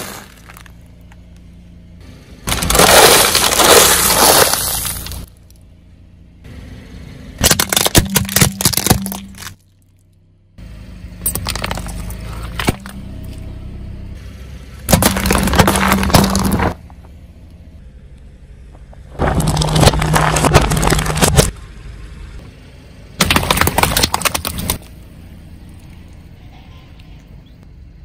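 A car tyre crushing packaged snacks and plastic bottles of soda, heard as about six separate bursts of crunching and crackling, each lasting one to three seconds, with a low hum between them.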